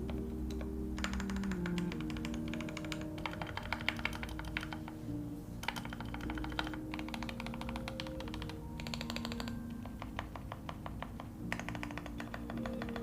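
Typing on a Glorious GMMK Pro mechanical keyboard fitted with Gateron Yellow Pro linear switches, in quick runs of key clicks broken by short pauses, over lo-fi background music.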